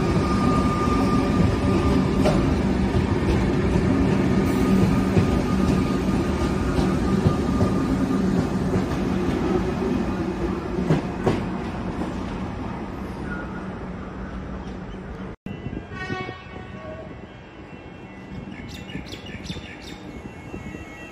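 Comeng electric suburban train rolling slowly past along the platform, a steady rumble and hum with occasional wheel clicks over rail joints, fading as the last car goes by. After a sudden cut the sound drops to quieter station ambience with a brief high pitched tone.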